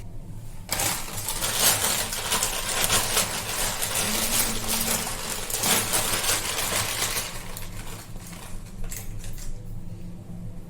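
Kitchen handling noises: a dense run of crackling, rustling and small clinks for several seconds, thinning to a few clicks near the end, as food packets and utensils are handled.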